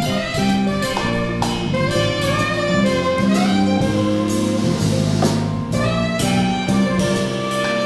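Live jazz quartet playing: a saxophone line over grand piano, bass and a drum kit, with cymbal strokes throughout.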